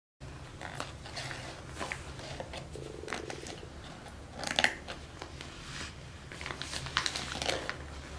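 Light taps and rustles of small hands on paper and a plastic play mat, scattered irregularly over a low steady hum of room tone.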